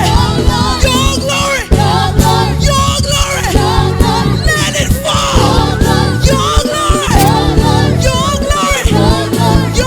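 Live gospel praise music: singers with vibrato over a band with bass and steady drum beats.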